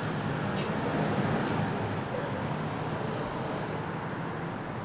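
Street traffic noise: a heavy vehicle's engine runs with a steady low hum that slowly fades, over general street noise.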